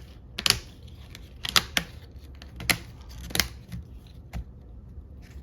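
A disc-bound planner being handled: a series of sharp clicks and taps as pages are pressed onto or worked along the plastic binding discs.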